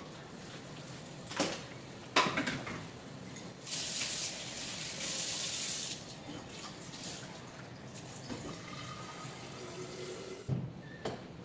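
Kitchen tap running into the sink while dishes are washed by hand. Sharp clinks and knocks of dishes against the sink come twice early on and again near the end. The water runs louder for about two seconds near the middle.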